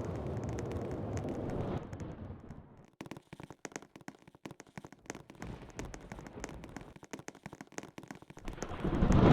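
Wind rumbling against the microphone in a storm. It drops away after about two seconds to faint crackling, then surges back into a loud, low roar near the end.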